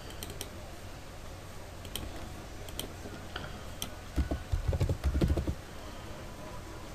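Typing on a computer keyboard: a quick burst of keystrokes a little after four seconds in, as a short word is typed into a search box. A few single clicks come before it.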